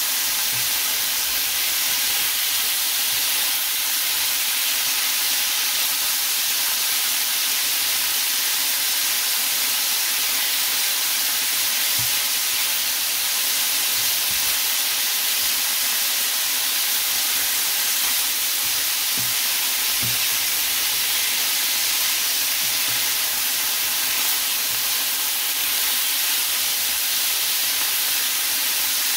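Steady hiss of food cooking in a pan, sizzling and steaming, with no break or change in level.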